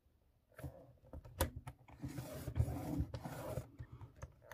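Sheet of cardstock being scored on a scoring board: a scoring tool scratching and rubbing along the groove, with light clicks of paper and tool, starting about half a second in and longest in the middle.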